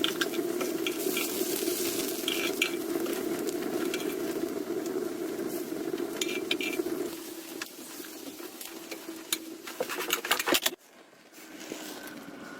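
Cooking sounds: a steady sizzle with scattered clinks of utensils against a pot or pan, the sizzle fading about two-thirds of the way through and a flurry of clinks just before the sound drops off suddenly.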